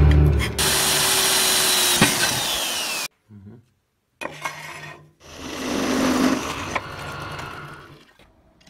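Drill press running, a twist drill boring into steel angle held in a machine vise, in short clips broken by abrupt cuts. A louder stretch of power-tool noise comes first and ends in a falling whine.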